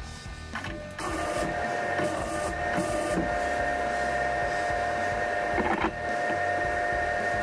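A machine starts up about a second in and runs steadily, a constant whine over a noisy hum.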